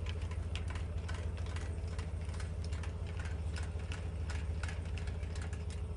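Pickup truck engine idling steadily, under irregular metallic clicks from the boat trailer's tongue jack being cranked down to lower the coupler onto the hitch ball.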